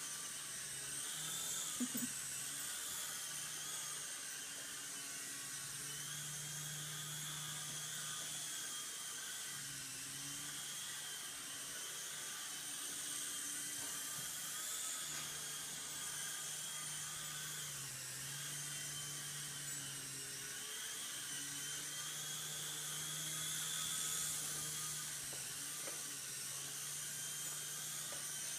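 Traxxas DR-1 coaxial RC helicopter in flight: the steady whine of its small electric motors and the hum of its rotors, stepping up and down in pitch as the throttle changes. A brief knock sounds about two seconds in.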